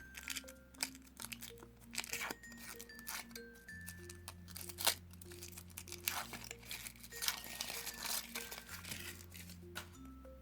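Foil wrapper of a chocolate surprise egg crinkling and tearing as it is unwrapped, with many sharp crackles, over light background music.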